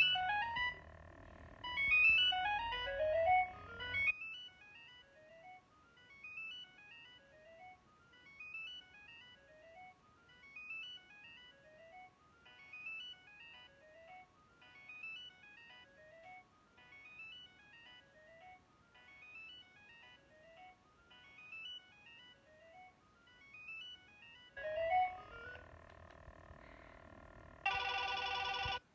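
Nokia 2115 mobile phone ringtones playing. A loud phrase comes first, then a quieter melody whose short run of notes repeats about every second and a half. Near the end comes another louder phrase, then a short steady buzzy tone that stops suddenly.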